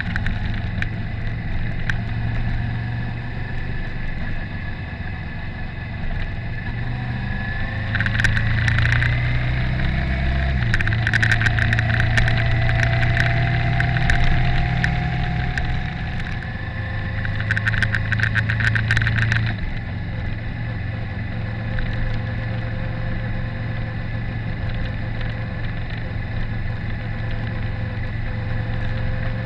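Motorcycle engine running steadily while riding, with a shift in the engine note about ten seconds in. From about eight to twenty seconds in the sound grows louder with rapid rattling clicks over the engine.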